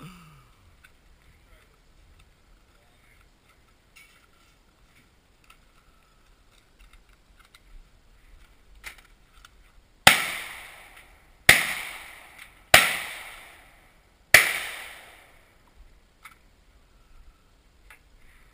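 Four gunshots, about a second and a half apart, each a sharp crack with a ringing tail of about a second. Before them there are only light clicks of handling.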